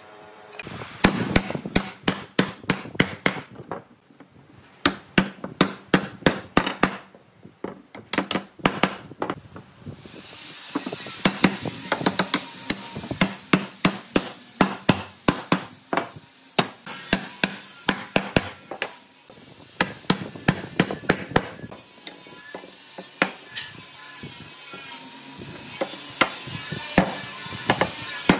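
Wooden mallet knocking the joints of a wooden frame together, striking in quick runs of blows.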